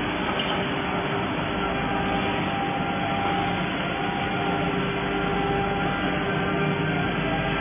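Steady hum and hiss of a robot-arm laser welding setup at work on copper plate, with a few faint steady tones over the noise and no breaks.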